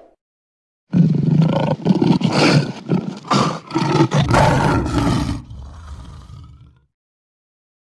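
A roar sound effect, like a lion's, played over a channel logo intro: loud and rough for about four seconds, then dying away and cutting out near the end.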